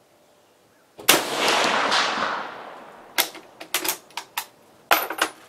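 Single shot from an M96 Swedish Mauser long rifle in 6.5x55mm, the report fading out over about two seconds. After it comes a run of sharp metallic clicks and clacks as the bolt is worked to extract the case.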